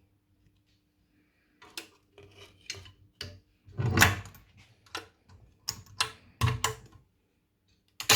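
Irregular clicks and knocks of small tools and parts being handled on a phone repair bench, about a dozen in five seconds, the loudest a heavier knock about four seconds in.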